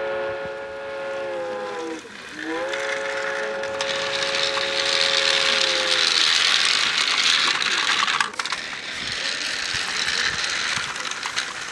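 A toy train's whistle sounds twice in long blasts, the second dropping in pitch as it ends, followed by a steady hiss of the train running.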